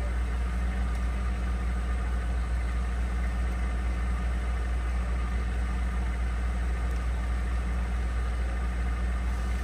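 Moored tugboat's diesel engine idling, a steady low hum that does not change.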